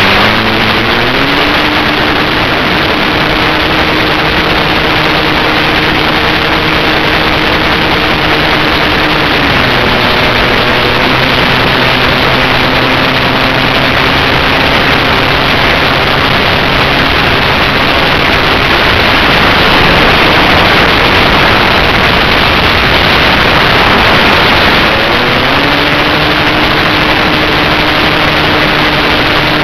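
Zagi-type RC flying wing heard from its own onboard camera in flight: the propeller motor's whine rises as the throttle opens about a second in, steps down in pitch about ten seconds in, fades out around twenty seconds and climbs back near the end. Under it runs a loud, steady rush of wind over the airframe and microphone.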